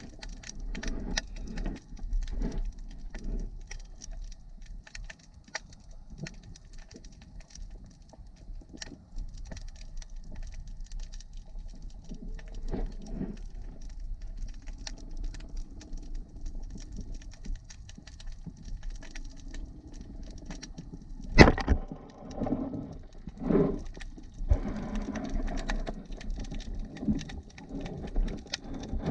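Underwater sound of a spearfishing dive: scattered sharp clicks and crackling over a low water rumble. A loud knock comes about three-quarters of the way through, then another, followed by a noisier churning stretch.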